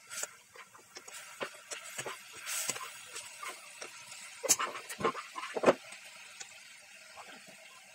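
Wooden spatula scraping and knocking against a kadai while fish pieces are stirred into a sizzling masala gravy, with a few sharper knocks about four and a half to six seconds in.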